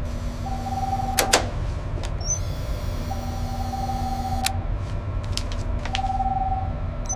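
Steady low machinery hum, with a steady electronic tone sounding three times for about a second each and a few sharp clicks.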